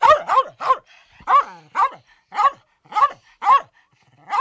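A dog barking: about nine short, sharp barks, roughly two a second, the first three coming quickly together.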